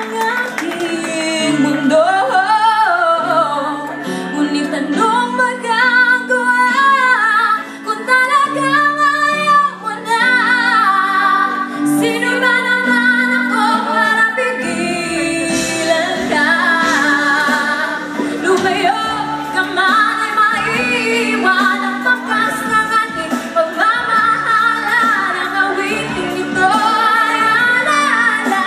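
A woman singing into a handheld microphone through a PA, over instrumental accompaniment of held chords; a beat joins the accompaniment about halfway through.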